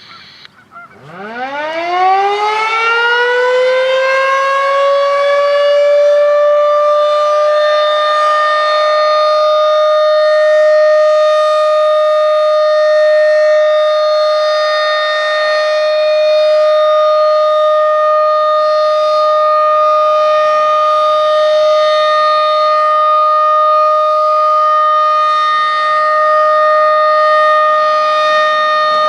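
Federal Signal 2001-DC outdoor warning siren winding up from a low pitch about a second in, rising steeply and levelling off over about five seconds, then holding one loud steady tone: the steady alert signal of a siren test.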